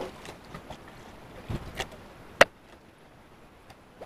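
Water lapping and splashing against a small outrigger fishing boat, with a few sharp knocks and clicks from the boat and gear, the loudest about two and a half seconds in.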